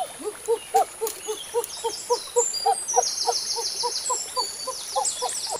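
A fast, regular series of short low hooting calls, about four a second, alternating between a lower and a higher pitch. High chirping trills run above them through the middle.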